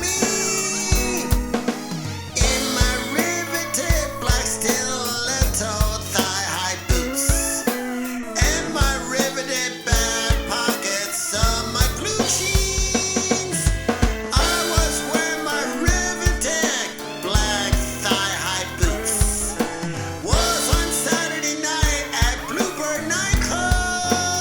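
A song playing with a steady drum beat, about two kick-drum hits a second.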